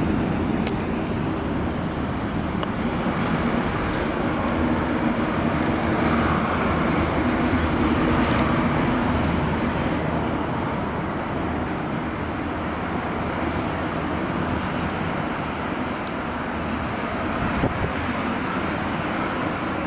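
Jet airliner engines running steadily, swelling slightly in the middle, heard through gusty wind.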